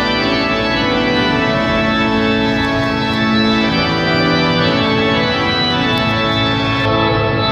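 Church organ playing loud, sustained chords that shift to a new chord a few seconds in.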